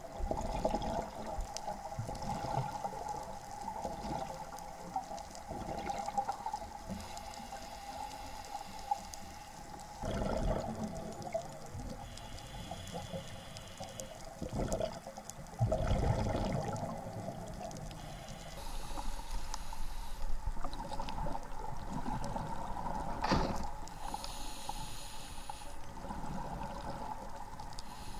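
Muffled underwater sound through an action-camera housing: a scuba diver's exhaled bubbles gurgle up in surges every few seconds over a steady dull hum.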